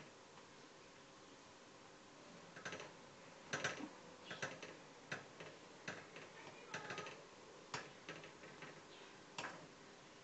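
Faint, irregular clicks and light scrapes of a silicone spatula against a steel saucepan as hot milk is stirred, about one or two a second. They begin after the first couple of seconds.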